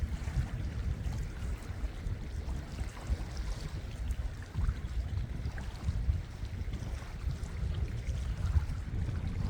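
Sea and wind, with wind buffeting the microphone as a low, uneven rumble.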